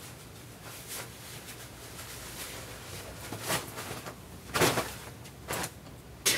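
Quiet room noise with a steady hiss and a few soft knocks and shuffles as a person moves about a small room, about four of them in the second half.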